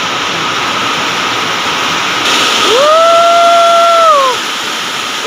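Heavy storm rain pouring down in a loud, steady hiss, blown into spray. About three seconds in, a person's long drawn-out "oh" rises, holds for over a second and falls away.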